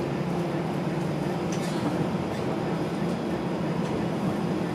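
Steady hum and rumble inside the cabin of a TTC Flexity Outlook streetcar on the move, with a constant low drone and a faint click or two.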